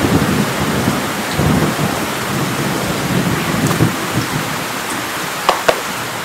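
Heavy rain pouring steadily, with low rolling rumbles of thunder through the first few seconds. Two sharp clicks come close together near the end.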